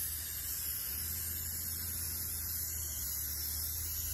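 Rust-Oleum Frosted Glass aerosol spray can spraying a coat onto a pane of glass in one continuous, steady hiss.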